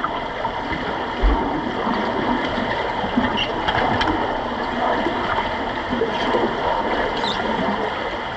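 Muffled underwater noise picked up through a submerged camera: a steady rush of water with bubbling and faint clicks as finned swimmers move about in the pool, and a low thump about a second in.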